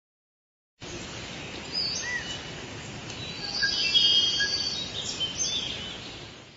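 Forest ambience: several birds chirping and whistling over a steady hiss. It starts about a second in and fades out near the end.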